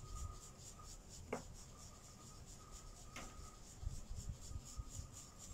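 Faint rubbing and handling noise from a phone being moved, with two light clicks about a second apart near the start and low bumps later on, over a quiet steady background hiss.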